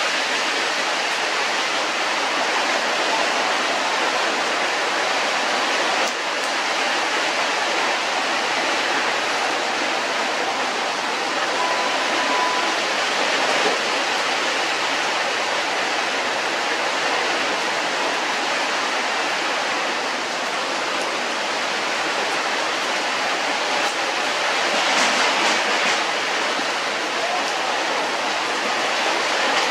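Steady, even hiss of rushing noise, with a brief faint tone about twelve seconds in.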